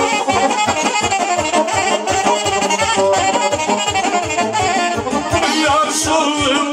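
Saxophone playing the lead melody over accordion and a steady bass beat: a live Romanian dance tune (joc) from a small party band.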